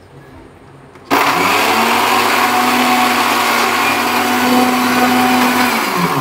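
Electric blender switched on about a second in, running at full speed for about five seconds and then winding down near the end, its hum rising as it spins up and falling as it slows. It is blending boiled eggs and oil into mayonnaise in one short burst.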